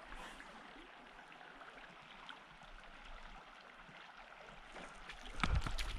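Small mountain creek flowing faintly, with louder splashing in the water near the end.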